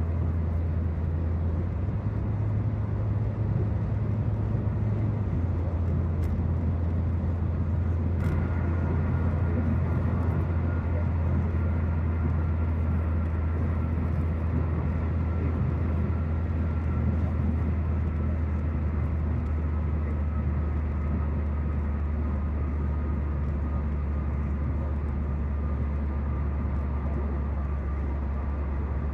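Steady in-cabin road noise of a car cruising on a freeway: a low drone from the engine and tyres. About eight seconds in, a faint thin whine appears and slowly falls in pitch.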